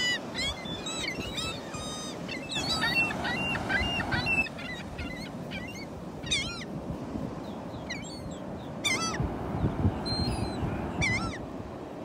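Gulls calling: a rapid run of overlapping cries in the first couple of seconds, then single loud calls now and then, over the steady wash of the surf.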